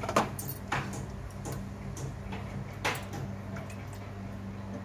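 Hot ghee crackling in a few sharp, irregular pops around the edge of rice-and-lentil pitha batter just poured into a greased kadhai on a low flame, over a steady low hum.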